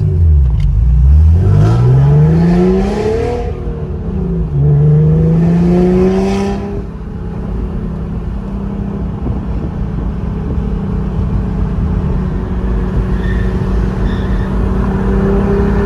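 Acura NSX V6 through a Pride V2 2.5-inch aftermarket exhaust, accelerating hard in a tunnel: the engine note climbs, drops at an upshift about four seconds in, climbs again, then settles into a steady drone at cruise.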